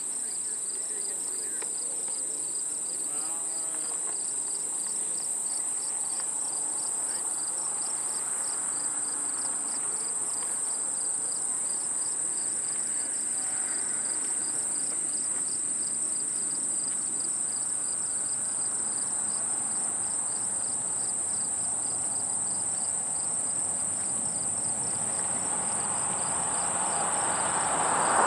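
Steady shrill insect chorus: one high continuous buzz with a fast pulsing trill beneath it. Near the end a rumble of approaching vehicle engines swells up and grows loud.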